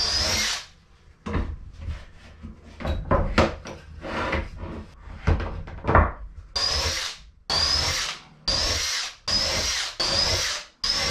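Cordless drill driving pocket screws into a plywood box, run in short bursts, each with a rising motor whine. There is one burst at the start, then knocks and clicks of the workpiece and screws being handled, then about five bursts in quick succession in the second half.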